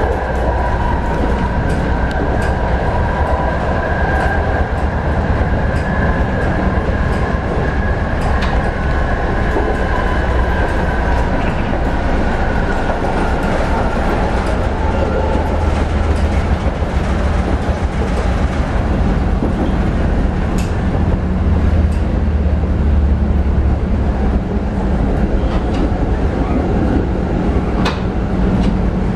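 PCC 7700-series tram running on its rails: a steady loud rumble with a high whine that sinks slightly in pitch and fades over the first half, and a few sharp knocks from the wheels on the track.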